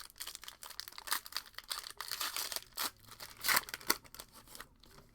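Plastic-foil trading card pack wrapper crinkling and tearing as it is handled and opened, a dense rustle with a few sharper crackles, the loudest a little past halfway.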